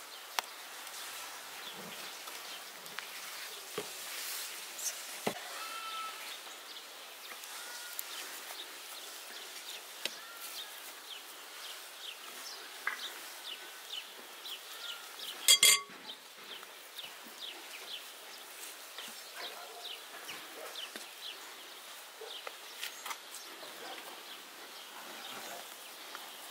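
Quiet outdoor background with scattered short chirps and small clicks from hands handling crepes, and one brief, louder ringing sound about sixteen seconds in.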